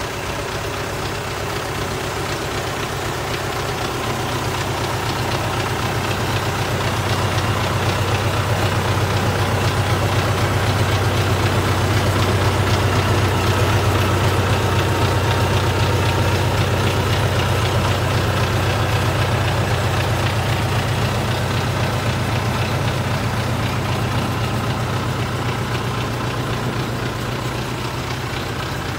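An engine idling steadily, getting louder through the middle and easing again near the end.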